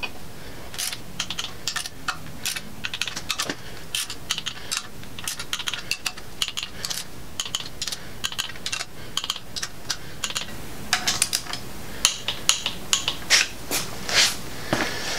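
Hand ratchet clicking in quick runs as the valley pan cover bolts are run down into the engine block, with occasional metal clinks of the tool. The clicks get louder over the last few seconds.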